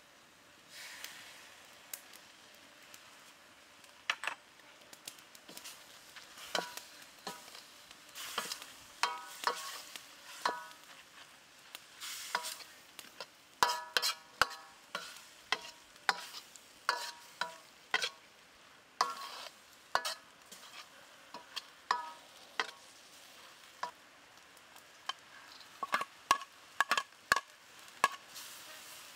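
Steel ladle scraping and striking against a steel wok as fried noodles are tossed, in irregular strikes with a short metallic ring, over a low sizzle. The strikes begin about four seconds in.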